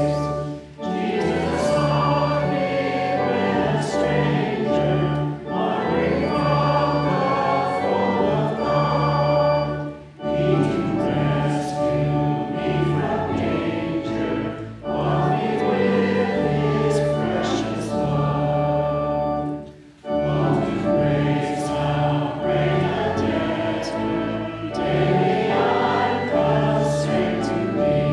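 Many voices singing a hymn together over a steady instrumental accompaniment with long held bass notes, pausing briefly between lines several times.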